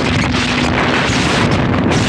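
Wind buffeting the microphone on a motorboat under way, over a steady engine drone.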